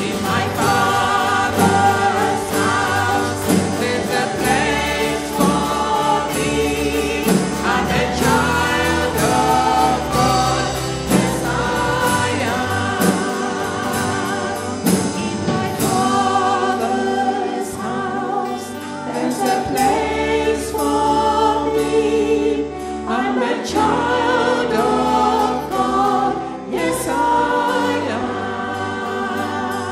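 A live church worship band playing a gospel praise song: several voices singing together over acoustic guitar, electric guitar and drums.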